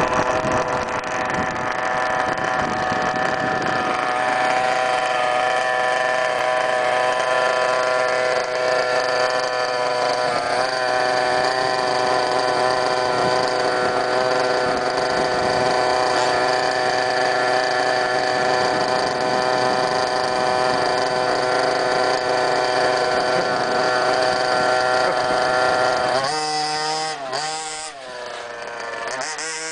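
Small two-stroke petrol engines of large-scale Baja RC buggies running together in a steady high buzz. About 26 seconds in the sound thins out and a single engine revs up and down.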